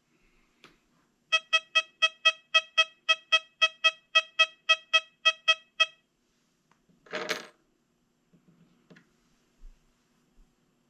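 XP Deus 2 metal detector beeping a rapid string of about twenty short tones at one pitch, four or five a second, as a silver 1939 Mercury dime is passed over its coil: its silver-coin tone. A short burst of noise follows about seven seconds in.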